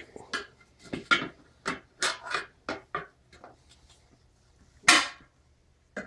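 Tire irons prying a tire's bead over the edge of a steel wheel rim: a quick run of short scrapes and knocks through the first three seconds, then one loud sharp knock a little before five seconds in.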